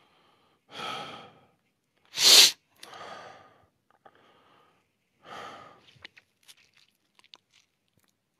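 A man breathing heavily, with three audible breaths and one loud, sharp burst of breath about two seconds in, then a few faint clicks near the end.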